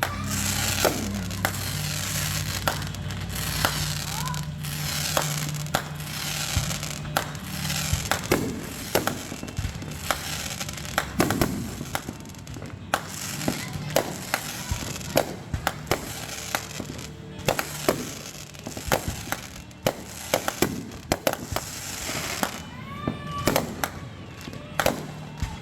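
Fireworks going off: a rapid, irregular series of bangs with crackling between them. A whistle falls in pitch near the end.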